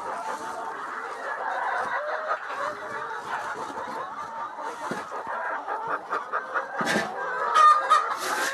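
A flock of chickens clucking and calling, many short calls overlapping without a break, with a few louder calls near the end.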